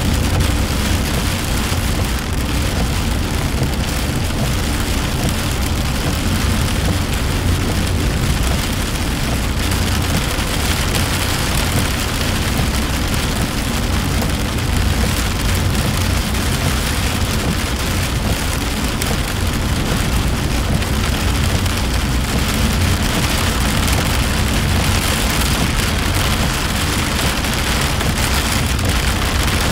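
Rain hitting a moving car's windshield and body, heard from inside the cabin, over a steady low rumble of road and engine noise.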